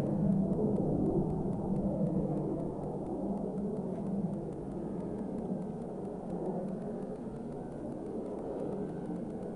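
O.S. .40 two-stroke nitro glow engine of a ski-equipped model airplane running in flight, a steady droning hum that slowly fades as the plane flies off.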